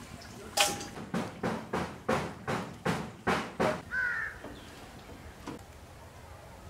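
Crow cawing: a run of about ten harsh caws at roughly three a second, then a short curving call about four seconds in.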